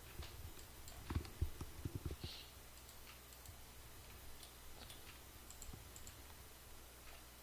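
Computer mouse clicks: a quick cluster of several about one to two seconds in, then a few faint scattered ones, over a low steady hum.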